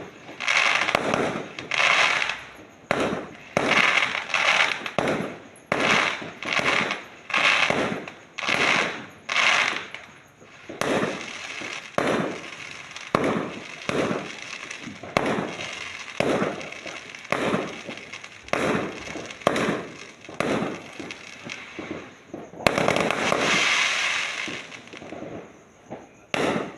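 Fireworks going off in a rapid series of sharp bursts, roughly one a second, each with a short fading tail. Near the end there is a longer, sustained crackling burst.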